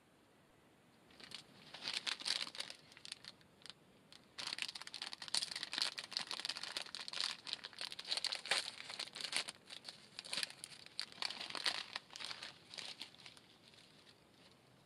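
Plastic snack bag crinkling as it is handled, in rapid rustling bursts that start about a second in and run on until near the end, with a short lull about three and a half seconds in.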